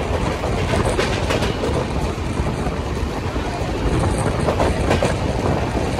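LHB passenger coach of an express train running at speed, heard from its open doorway: a steady rumble of wheels on the rails mixed with rushing air, with scattered clicks from the track.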